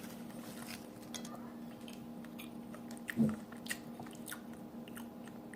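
Close-miked chewing of a cheeseburger: scattered soft mouth clicks and smacks over a steady low hum, with a brief low murmur about three seconds in.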